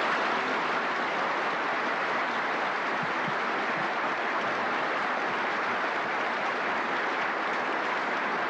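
A large audience applauding, dense and steady throughout.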